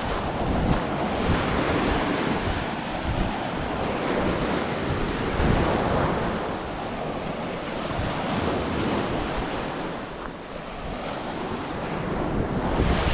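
Small Lake Michigan waves washing onto a sand-and-pebble beach, with wind gusting unevenly on the microphone.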